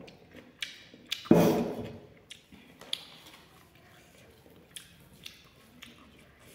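A loud thump about a second in, then scattered soft clicks and taps as fingers pick food from a plate, with small eating sounds.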